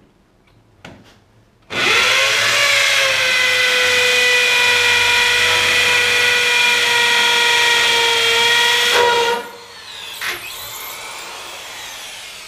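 Cordless hammer drill boring into a concrete floor. It starts about two seconds in with a quick rise in pitch and runs at a steady high pitch for about seven seconds. It then stops, with a knock and a fading wind-down.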